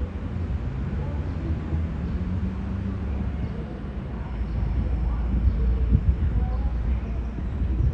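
V/Line VLocity diesel multiple unit running with a low engine rumble as the train departs the station, growing a little louder from about five seconds in.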